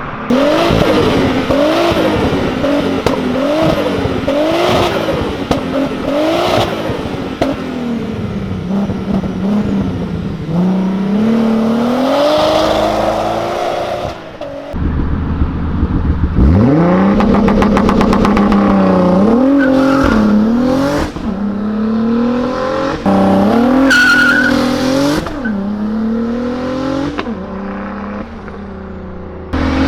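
Turbocharged VR6 engine of a Mk4 VW GTI revving up and down about once a second. About halfway through it pulls away hard and climbs through several gears, the pitch dropping at each upshift.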